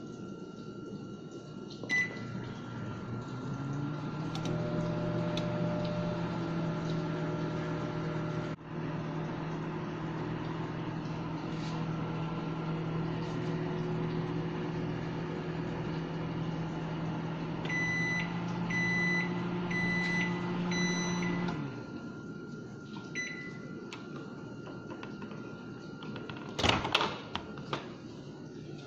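Microwave oven: a keypad beep about two seconds in, then the oven running with a steady hum, a run of short beeps signalling the end of the cooking cycle, and the hum cutting off. Near the end comes a sharp clack of the door latch as the door is opened.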